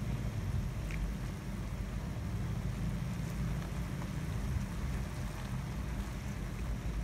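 Beef bulgogi simmering in a frying pan on a portable gas stove while a silicone spatula stirs it: a steady low rumble under a faint hiss, with a few faint clicks.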